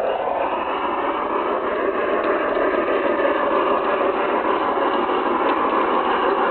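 LGB Mikado garden-railway model steam locomotive running with its train on the track, a steady whirring rattle of motor, gears and wheels on the rails. It grows a little louder near the end as the train comes closer.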